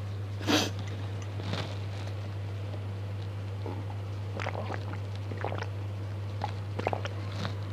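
A person drinking from a glass pitcher, with a sharp knock about half a second in and a run of small gulping and clicking sounds in the second half. A steady low hum runs underneath.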